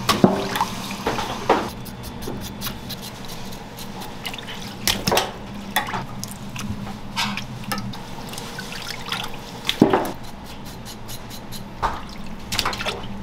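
Water splashing and dripping as raw pig's trotters are washed by hand, with scattered sharper splashes and knocks over a steady low hum.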